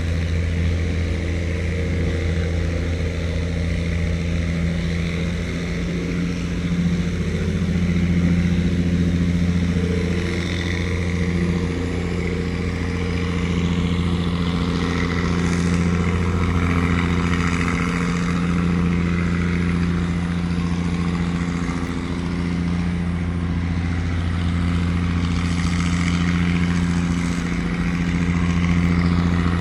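A wooden tugboat's engine running steadily with a low, even drone.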